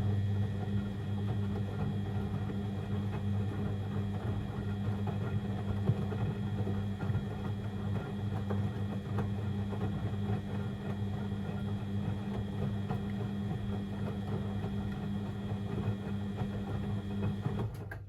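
Beko WML 71433 NP washing machine's motor turning the drum in one tumble phase of the wash, a steady motor hum under churning noise, which stops abruptly near the end.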